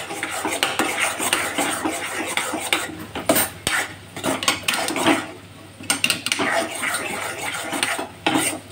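A metal spoon scraping and stirring thick, crumbly egg-yolk halwa in a metal kadhai. It goes in quick, uneven strokes of spoon on pan, with a few short pauses.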